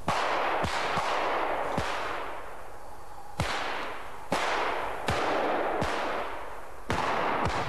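Pistol gunfire: about ten single shots in uneven succession, each sharp crack followed by a long rolling echo.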